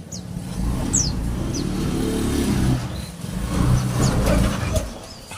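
A motor vehicle engine running close by, its low rumble swelling and easing, with a few short, high, falling chirps from small songbirds, typical of pleci (white-eyes), near the start and again about four seconds in.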